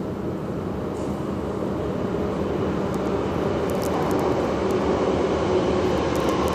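Budapest M3 metro train approaching through the tunnel into the station, a steady rumble growing gradually louder as it nears, with a faint steady tone joining about four seconds in.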